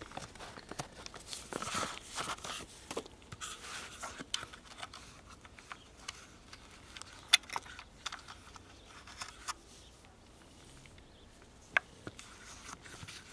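Faint handling noise: paper and cardboard rustling, with scattered light clicks and taps as a boxed transistor radio and its paper manual are moved about. Most of it comes in the first few seconds, then a couple of single sharp clicks.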